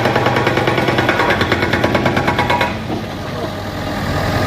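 An engine running with a fast, even pulse that drops away nearly three seconds in, leaving a quieter low hum.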